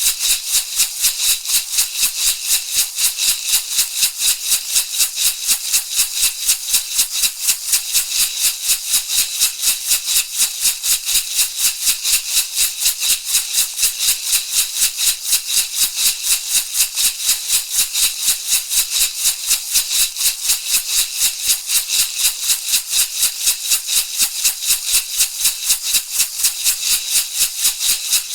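Shamanic rattle shaken in a steady, even rhythm of quick rustling strokes, bright and hissy in tone, with no change in pace or strength.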